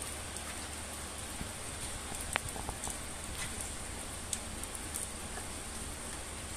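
Steady rain falling on wet concrete, an even hiss with scattered sharper drops ticking, the clearest about two and a half seconds in.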